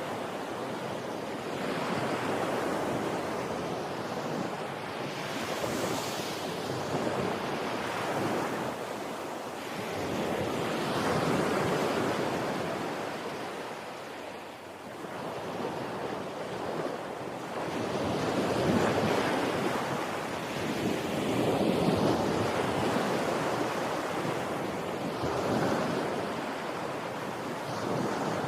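Sea waves breaking on a beach, the surf swelling and fading in repeated surges every few seconds.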